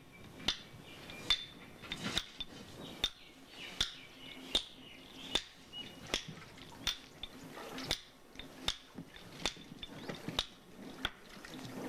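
Hand hammer striking stone blocks as they are dressed by hand, a steady run of sharp blows about one every 0.8 seconds, each with a short metallic ring.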